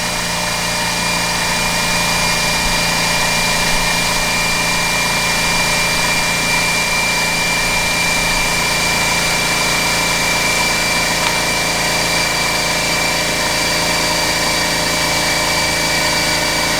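Air compressor running steadily, building pressure for inflating a tire, a constant motor hum with a high whine over it.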